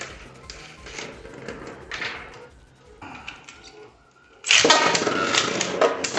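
Beyblade Burst tops (Stardust Zrrago and Brave Valkyrie) spinning and knocking against each other in a plastic stadium, with light irregular clicks. About four and a half seconds in, a sudden much louder run of rapid clattering hits begins.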